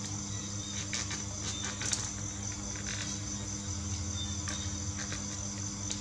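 Origami paper crinkling and rustling as hands fold and crease it, a few short crisp crackles about one to two seconds in and again around three and four and a half seconds, over a steady high-pitched whine.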